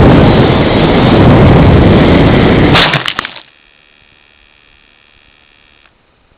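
Aircraft's propeller engine and wind rush, loud and steady, cutting off about three seconds in with a few sharp knocks as it touches down in snow. After that a faint steady whine runs on and stops near the end.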